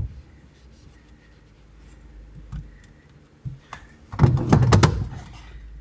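Knocks and light clicks as a metal roll-cage sun visor is handled and fitted onto the cage bar inside a car. A sharp thump comes at the very start, and a loud clatter of several quick knocks about four seconds in.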